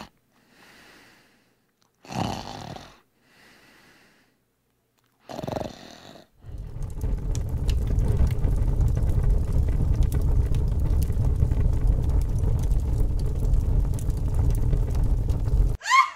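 Two short snores about two and five and a half seconds in. Then a fire sound effect starts, a steady low rush with crackling, and cuts off suddenly just before the end.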